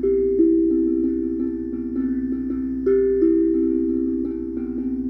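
Steel tongue drum played slowly: a falling three-note figure is struck twice, about three seconds apart, each note ringing on long and overlapping the others.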